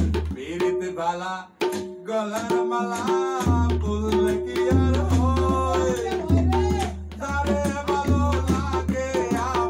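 Tabla pair played as accompaniment to a sung song: quick strokes on the dayan over deep, sustained bass strokes from the bayan, with the singer's voice over them and a short break about one and a half seconds in.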